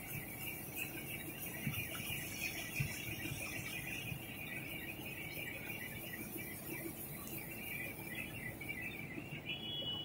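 Rotogravure printing machine running: a steady mechanical whir with a high, hissing chatter over a low rumble, and a brief high-pitched tone near the end.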